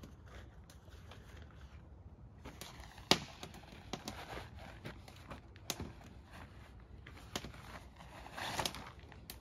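Scattered knocks and clicks, the sharpest about three seconds in, with a short rustle near the end.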